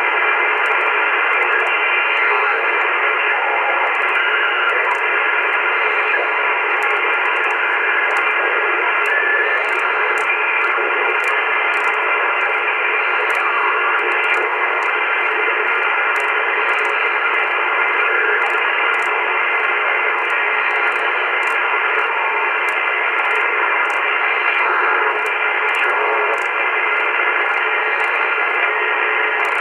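Shortwave band noise from an AOR AR8600 communications receiver in upper-sideband mode, tuned slowly upward through the 2.2–2.45 MHz range. It is a steady hiss with several faint steady whistles running through it.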